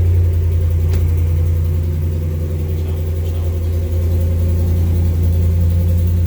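5.7-litre Hemi V8 of a Ram 1500 running steadily on a cold start, with the tick that is put down to a broken valve spring.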